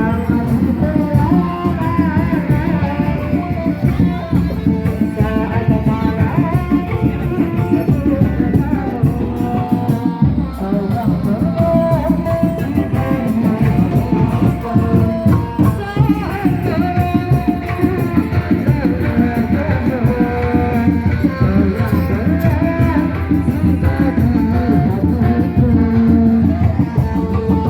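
Kuda lumping accompaniment music: hand drums playing a fast, dense rhythm under a wavering, bending melody line.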